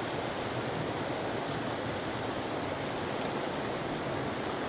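Mountain stream rushing over rocks: a steady, even rush of flowing water.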